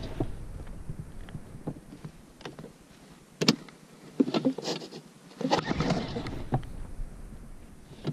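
Sea-Pro T3S two-stroke outboard being pull-started with its recoil starter: the rope is yanked and the engine turns over briefly without catching, twice, with a few sharp clicks from the starter handle in between. It is the motor's first start after winter storage.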